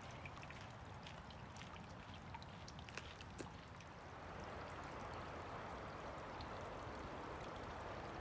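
Small forest creek trickling over rocks, faint, with scattered light ticks of water in the first half; the running water grows a little louder about halfway through.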